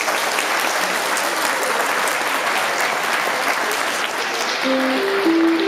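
Audience applauding, a dense patter of many hands clapping. Near the end a simple melody of clear, steady notes starts up.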